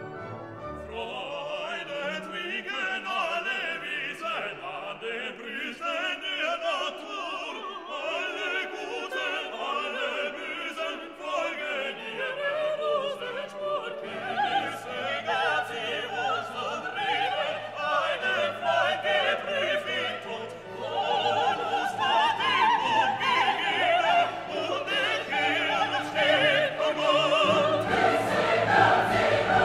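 Classical background music with operatic singing over an orchestra; a lower bass part joins about halfway through and swells near the end.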